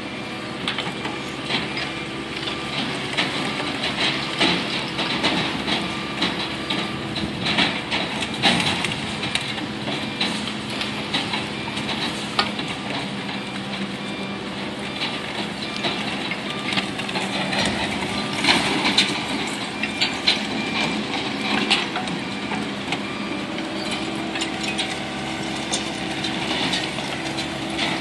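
Waste-sorting line machinery running, its inclined slat conveyor carrying mixed household waste: a steady machine hum with irregular clattering and knocks throughout.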